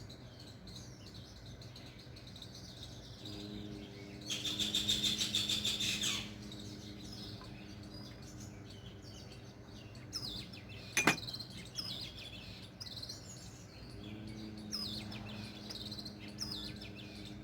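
Birds chirping, loudest in a dense run of rapid high chirps about four to six seconds in, with a faint low hum coming and going and one sharp click around eleven seconds.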